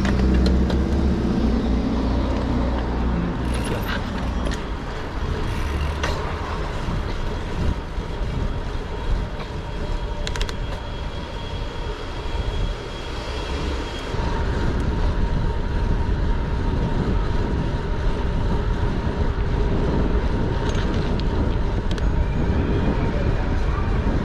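City street traffic noise with a heavy, gusty wind rumble on the microphone, as heard while cycling through traffic. The rumble grows stronger about halfway through.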